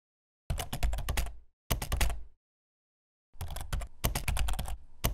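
Computer keyboard typing sound effect: quick runs of key clicks in several short bursts, with dead silence between them.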